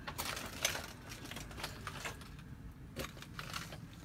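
Footsteps crunching over charred debris and rubble on a fire-gutted floor: a few uneven bursts of crackling and clicking.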